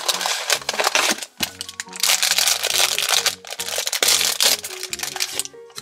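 Cardboard blind-box flaps handled, then a black foil bag crinkling and tearing as it is pulled open, the crinkling loudest in the middle, over background music.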